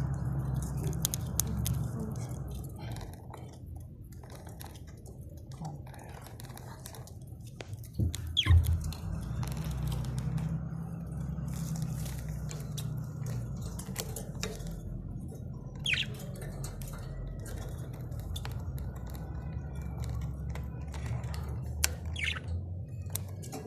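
Budgerigars giving a few short, separate squawks over a steady low rumble, with a louder thump about eight seconds in.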